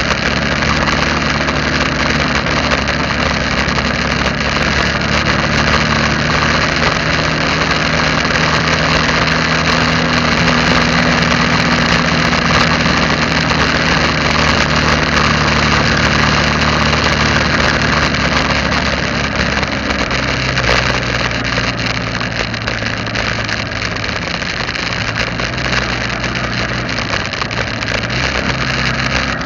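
Vehicle engine running steadily while driving along a road, under a steady hiss of road noise. The engine note drops lower about twenty seconds in and wavers near the end.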